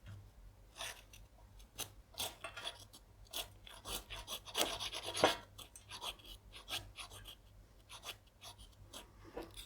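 Stainless steel blade of a Joker Canguro folding knife scraping and shredding fatwood in an irregular series of short strokes, shaving off fine tinder.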